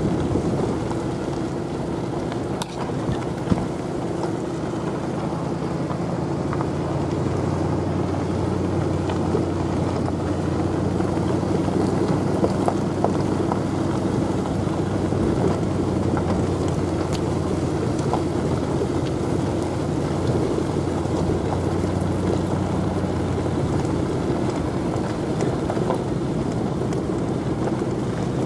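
Truck being driven along a gravel road: a steady engine hum under the rumble of tyres on gravel, with occasional light clicks and rattles.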